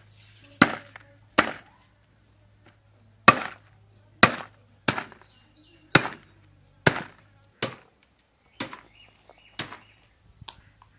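Heavy chopper blade hacking through a singed goat leg, bone and all, onto a wooden log used as a chopping block: about a dozen sharp chops, roughly one a second, with a short pause about two seconds in and lighter strikes near the end.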